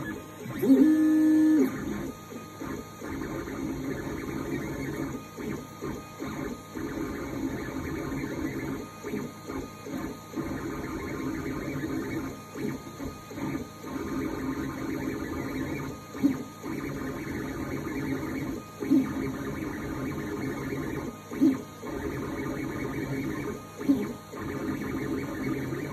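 Geeetech A20M 3D printer running, its stepper motors giving a steady tone that breaks off in short pauses. A louder pitched tone comes about a second in, and brief louder notes follow every two to three seconds later on.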